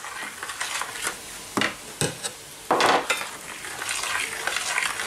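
Potato masher stirring and mashing potatoes with milk into a creamy purée in a stainless steel pot. Wet stirring with several knocks and scrapes of the metal masher against the pot, the loudest a little under three seconds in. After that comes a busier spell of scraping and stirring.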